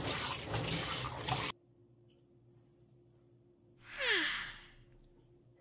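Kitchen tap running onto a bowl in a stainless-steel sink, cutting off suddenly about a second and a half in. About four seconds in, a Korean shorthair cat gives one breathy yawn that ends in a squeak falling in pitch.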